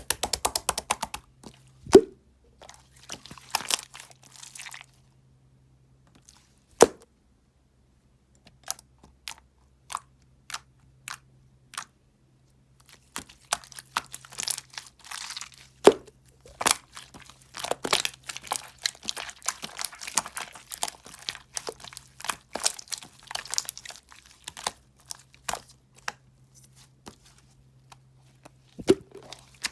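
Soothing gel being handled, giving irregular flurries of crackling clicks and pops, with a few louder single pops and a sparser stretch in the middle.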